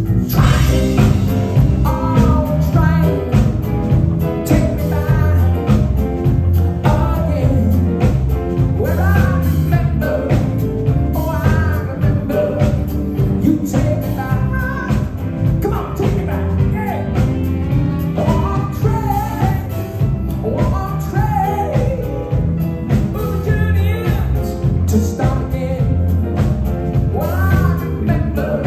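Live band music played loud and steady, with a male lead singer singing over it.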